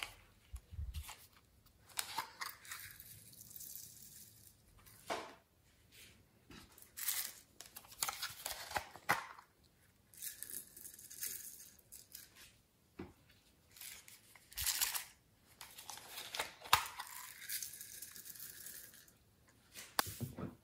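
Hard plastic toy ducks being handled, lifted and set down: irregular clicks and knocks with rustling, scraping stretches between them.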